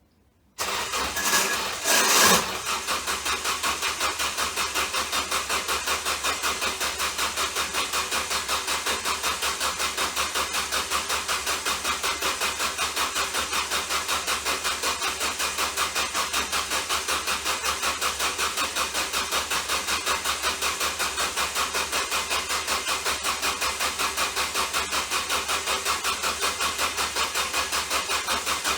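Ford Focus starter kicking in with a sudden jolt, then the engine turning over without a break, a steady pulsing at about five beats a second, as the faulty, shorted starter keeps cranking.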